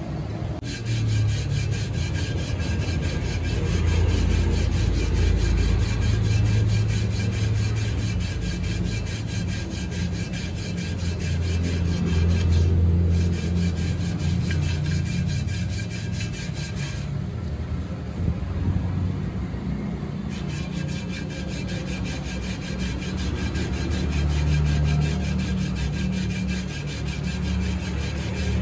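Alloy wheel spinning on a lathe while abrasive paper is pressed against the rim by hand: a steady low motor hum under a fast, even rasping rub. The rasp drops out briefly twice, the second time for about three seconds.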